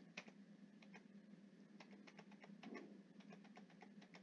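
Faint computer keyboard typing: irregular single keystrokes entering a card number, over a faint steady hum.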